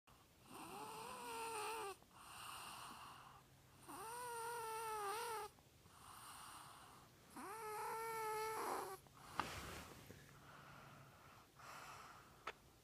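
Snoring: three drawn-out snores with a whistling pitch, about three and a half seconds apart, each followed by a softer breathy sound. A sharp click comes about nine seconds in, then only quieter breathing and a few faint clicks.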